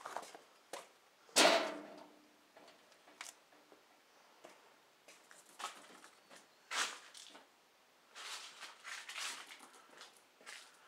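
Scattered knocks, clicks and rustling as someone moves about a garage handling things, with one loud knock about a second and a half in that rings briefly.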